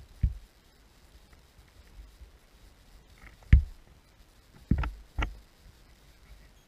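Four dull knocks heard underwater, the loudest about three and a half seconds in and two more close together near the end, over a faint steady hiss.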